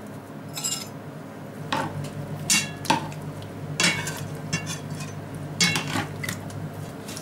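A metal spoon clinking against a metal mortar and a frying pan as a ground spice mix is scooped out and sprinkled, then as the duck pieces are turned. There are about eight or nine sharp, ringing clinks.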